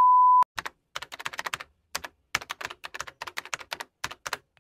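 A short steady beep, then rapid computer-keyboard typing clicks in quick runs with short pauses: a typing sound effect.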